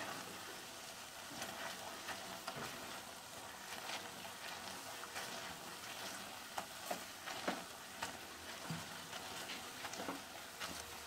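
Cooked black chickpeas sizzling faintly in a stainless-steel kadai while a flat metal spatula presses and mashes them, with scattered scrapes and taps of the spatula on the pan.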